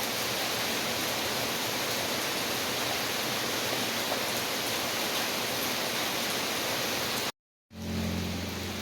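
Steady rain, a dense even hiss. About seven seconds in it cuts to silence for a moment, then comes back with a low hum beneath it.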